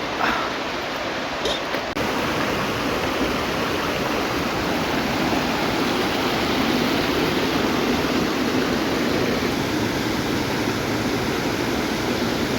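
Steady rushing noise of a waterfall's falling water, a little louder from about two seconds in.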